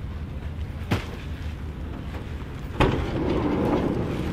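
Hand cart loaded with gear being pulled across asphalt and unloaded, over a steady low rumble. There is a sharp click about a second in, then a thump near the three-second mark followed by about a second of rattling.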